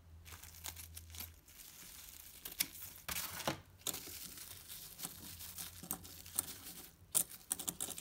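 Thin clear plastic wrap crinkling and crackling as it is peeled off and pulled away from a stack of coins, in irregular rustles with louder crackles about three and a half seconds in and again around seven seconds in.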